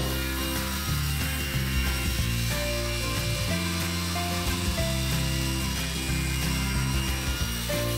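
Table saw cutting wood, trimming the edge of an end-grain cutting board, heard under background music.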